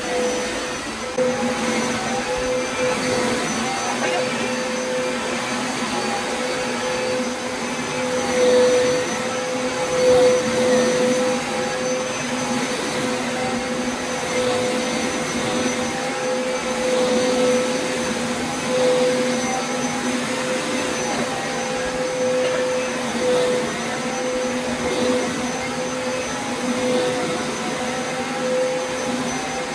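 Upright carpet shampooer running with a steady motor hum while being pushed back and forth over carpet, its tone dipping and rising slightly every couple of seconds.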